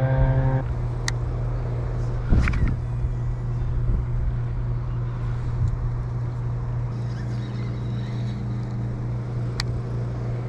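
Steady drone of a leaf blower engine running, over low wind rumble on the microphone, with a few sharp clicks about a second in, at two and a half seconds and near the end.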